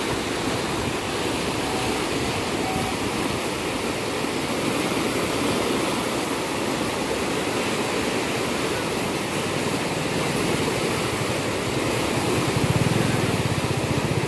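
A river in flood, fast muddy water rushing and churning in standing waves, making a steady loud wash of water noise. A low rumble rises briefly near the end.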